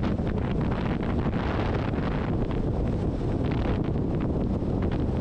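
Wind rushing and buffeting over a microphone mounted outside a vehicle driving at highway speed: a steady heavy rush with irregular gusty flutters.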